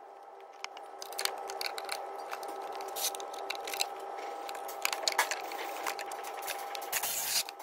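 Scattered clicks and scrapes of the timing belt cover and its bolts being handled and worked loose, over a steady background hum.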